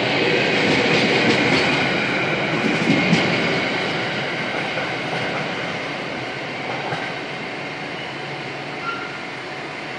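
Container wagons of a Freightliner freight train rolling past on the platform line, wheels clicking over the rail joints. The rolling noise fades from about three seconds in as the last wagons pull away, leaving a lower steady hum.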